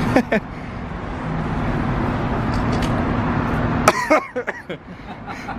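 Steady low hum of outdoor traffic and machinery. Short bits of voice come just after the start and again about four seconds in, where the hum drops quieter.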